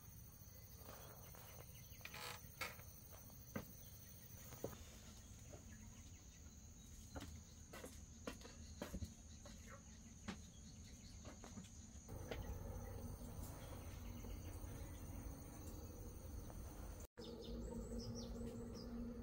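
Faint countryside ambience: insects trilling steadily in the first few seconds, with scattered light clicks and knocks through the middle. The background changes abruptly a few times, and a few faint bird chirps come near the end.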